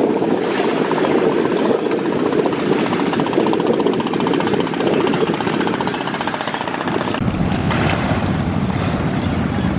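Passenger river launch MV Manik-9 running at speed: steady engine drone and water rushing past the hull. About seven seconds in, wind buffeting the microphone adds a deep rumble.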